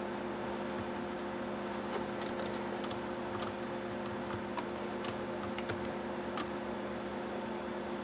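Typing on a laptop keyboard: irregular, scattered key clicks as code is entered, over a steady low hum.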